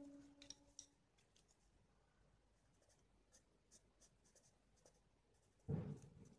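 Faint, short scratching strokes of an oil pastel crayon on cartridge paper. Near the end there is a single dull thump.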